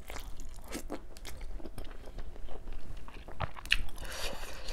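A person chewing and eating steamed chicken momo, with irregular wet mouth clicks and smacks.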